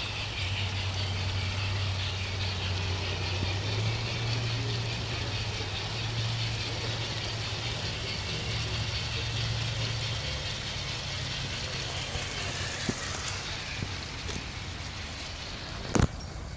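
A steady low mechanical hum, like an idling engine, over an even outdoor hiss; the hum stops about ten seconds in. A single sharp knock near the end.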